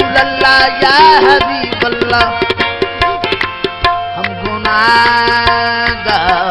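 Background music: a gliding melodic line over a steady pattern of hand-drum strokes.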